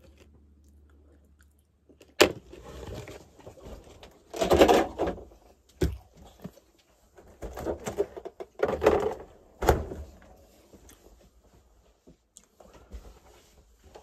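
Handling noises inside a camper: sharp clicks and knocks of a cupboard door and its latch, with bursts of clatter and rustling as items are moved, in a few separate spells.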